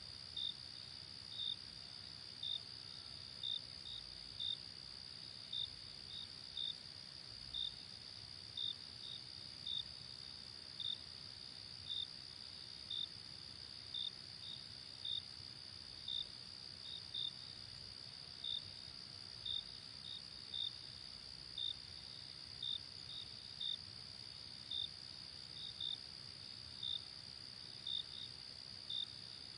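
Insects chirping: a steady high-pitched trill runs throughout, with a single insect's short chirp repeating about once a second, sometimes two close together.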